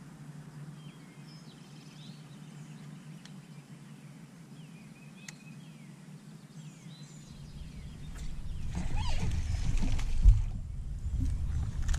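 Faint bird chirps over quiet water. From about eight seconds in, louder splashing and thrashing as a small bass is hooked beside the boat, with a sharp splash about ten seconds in.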